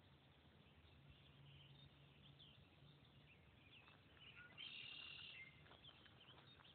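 Near silence: faint outdoor ambience with scattered faint bird chirps, and one brief buzzy high-pitched call a little past halfway through.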